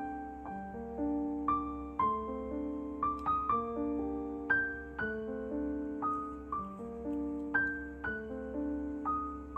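Background piano music: a melody of single struck notes over held chords, about one or two notes a second.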